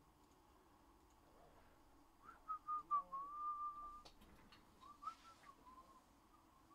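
A person whistling softly: a few short notes stepping in pitch, then one note held for about a second, followed by a few fainter notes near the end.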